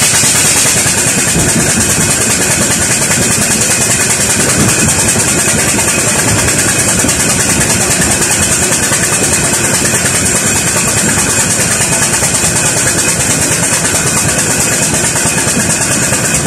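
Burrell Gold Medal steam tractor running steadily along the road: a continuous mechanical clatter under a steady hiss.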